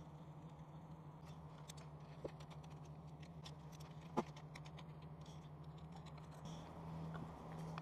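Ratchet wrench on a long extension clicking in quick, uneven runs as the throttle body bolts are run down, with one sharper click about four seconds in, over a steady low hum.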